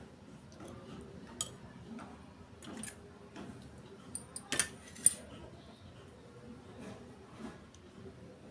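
Scattered clinks and taps of a serving spoon against a steel pot and a small glass bowl as curry is ladled out, the loudest about five seconds in.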